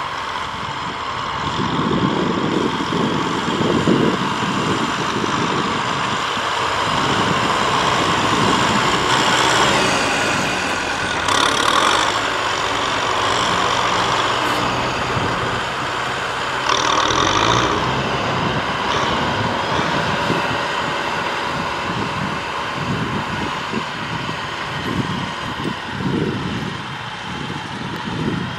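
Tractor diesel engines running steadily under load as the tractors push soil with rear blades. Two short, louder bursts of high-pitched noise break in near the middle.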